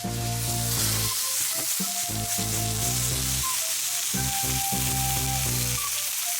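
Food sizzling in a hot pan, a steady hiss, under background music.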